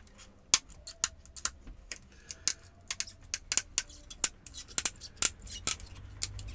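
Quick, irregular sharp clicks and snaps of hand work on a laptop's plastic and metal parts during disassembly, growing busier after about two seconds.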